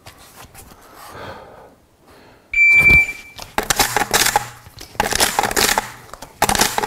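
A shot timer's start beep, then three quick bursts of metallic clicking and clacking as 12-gauge shells are thumbed, four at a time from quad-load caddies, through the loading port into the magazine tube of a Stoeger M3000 semi-automatic shotgun.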